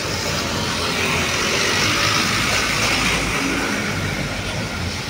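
Road traffic: motor vehicle noise with a low engine rumble and tyre hiss, swelling as a vehicle passes about two to three seconds in.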